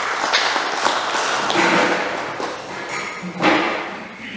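Audience applause in a hall, dense clapping that tapers off over the last two seconds, with a louder thump about three and a half seconds in.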